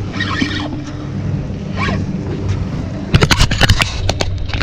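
A hooked fish splashing and thrashing at the surface beside a seawall, a quick run of sharp splashes about three seconds in, over a steady low hum.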